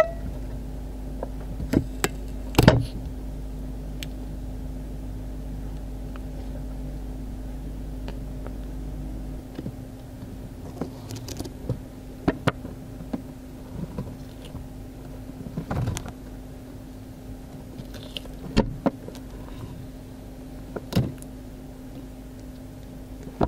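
A Central Asian tortoise biting into cucumber: sharp, short crunches, three close together about two seconds in, then single ones every few seconds, over a steady low hum.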